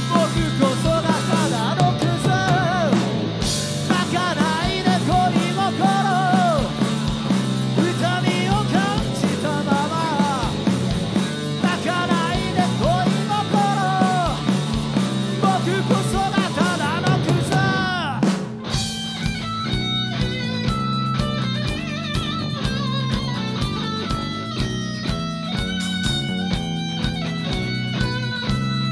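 Live rock band (electric guitars, bass, drums) playing an instrumental passage: a lead electric guitar bends and wavers its notes over the bass and drums. About 18 seconds in, the playing breaks off briefly and changes abruptly to a steadier guitar part.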